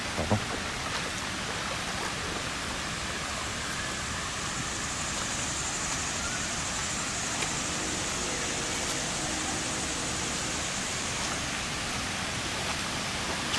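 Creek water and waterfall rushing, a steady, even noise without a break.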